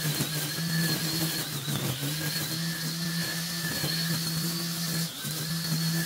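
String trimmer running at a steady high engine pitch while its line cuts through long grass, easing off briefly about two seconds and again about five seconds in.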